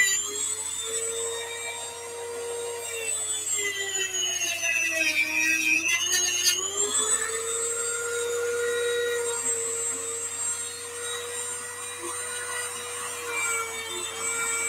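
A high-speed handheld rotary tool runs continuously with a steady high whine, cutting the mounting tabs off a replacement RC landing-gear retract. About four seconds in its pitch sags for a couple of seconds as it bogs down in the cut, then climbs back.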